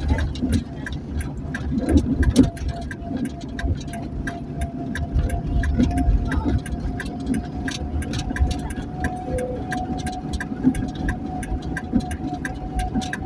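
Ambulance on the move, heard from inside: a steady low engine and road rumble with an even, fast ticking of about three ticks a second and a faint steady tone through most of it.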